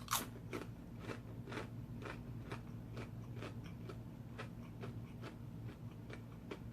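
Close-miked chewing of a rotisserie chicken sub sandwich, a mouth sound about twice a second, the first bite the loudest.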